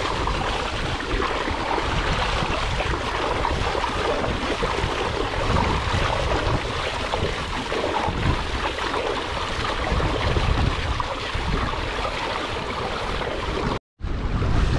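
Wind blowing on the microphone over water rushing and splashing along the hull of a Hobie Adventure Island sailing kayak under way. The sound drops out for a moment near the end.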